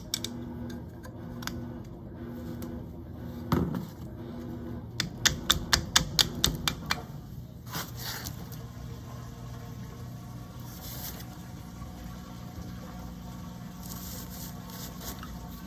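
Hand work on a washer's drive parts: a knock about three and a half seconds in, then a quick run of about nine sharp clicks about five to seven seconds in, over a steady low hum.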